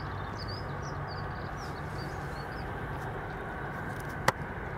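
Steady low hum of a distant Airbus A330's Rolls-Royce Trent jet engines at low power, with a small bird chirping repeatedly in short high notes during the first three seconds. A single sharp click about four seconds in.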